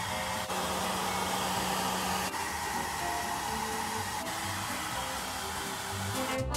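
Hair dryer running steadily with a constant blowing hiss, drying a puppy after its bath, over faint background music.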